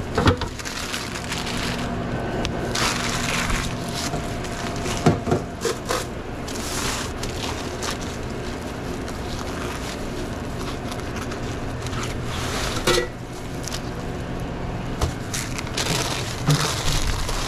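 Sandwich-counter handling sounds: packaging crinkling in several short spells, with a few knocks, over a steady hum.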